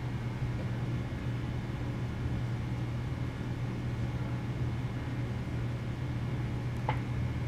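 Steady low hum under a constant hiss, with a faint click near the end.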